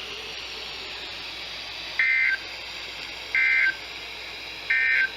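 NOAA Weather Radio EAS End-of-Message data bursts: three short, identical two-tone digital screeches about 1.4 seconds apart over faint radio hiss. They signal the end of a severe thunderstorm warning.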